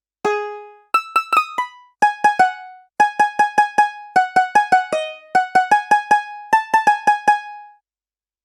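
A sampled Indian plucked-string instrument from the SwarPlug 4 library playing a short melodic phrase: one held note, then quick runs of short, crisply attacked notes in small groups. It stops near the end.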